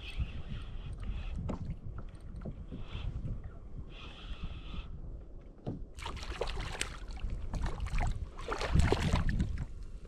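A hooked redfish splashing and thrashing at the water's surface beside a kayak as it is brought in to be landed, starting about six seconds in and loudest near the end, over a low rumble.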